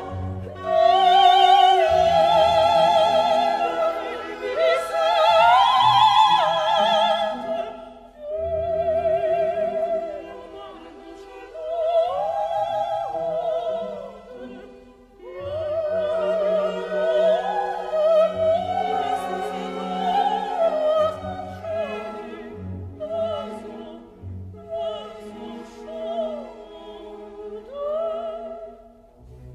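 Operatic singing with a wide vibrato over orchestral accompaniment, in long phrases with short dips between them.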